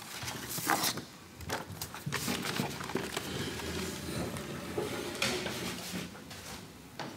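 Hinged wooden doors of a kamishibai stage box being handled and swung open, with irregular wooden knocks and rubbing, and light shuffling and footsteps.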